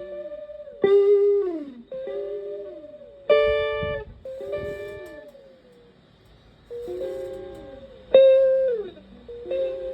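Electric guitar (a Stratocaster) playing single sustained notes through a PT2399 echo pedal and a Twin Reverb–style amp. A new note is picked about every second or so, and each one bends down in pitch as it fades.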